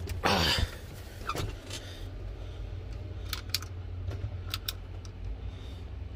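Freightliner semi-truck's diesel engine idling steadily, heard from inside the cab. A loud rustle comes right at the start, and a few sharp clicks fall around the middle.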